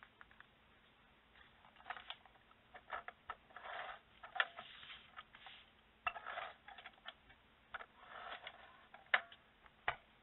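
Handling noise of cardstock sliding and rustling on a tabletop and a clear plastic storage box being picked up and moved, giving scattered light clicks and taps. The sharpest taps come about four seconds in and twice near the end.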